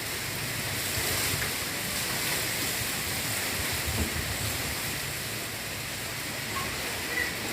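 Strong wind blowing steadily, a rushing hiss with uneven low rumbles of gusts buffeting the microphone.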